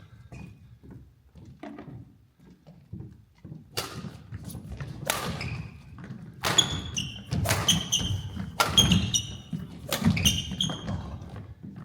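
Badminton rally: sharp cracks of rackets hitting the shuttlecock, thudding footsteps, and short high squeaks of court shoes on the floor. Light footwork at first, then a busy exchange from about four seconds in.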